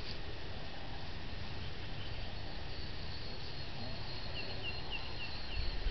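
Outdoor country ambience: a thin, steady, high insect tone and a bird's quick run of about six short chirps a little after four seconds in, over a low steady rumble.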